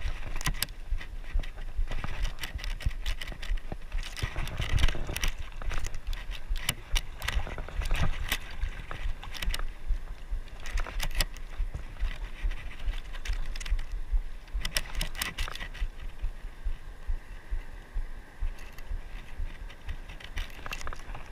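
Wind buffeting the microphone over a steady wash of sea, with rapid irregular clicking and rattling from a size-5000 spinning reel as it is cranked against a hooked fish.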